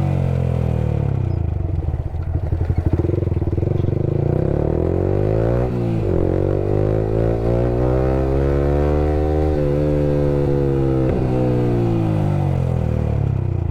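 Yamaha R15 V3 single-cylinder engine with an aftermarket Akrapovic R9 exhaust, heard on the move. The revs fall, then climb twice with a sharp dip about six seconds in, like a gear change, and ease off near the end.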